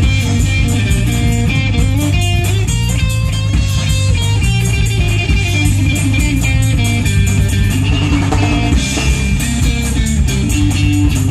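A live surf rock band playing a fast instrumental. Electric guitar picks the melody over electric bass and a drum kit.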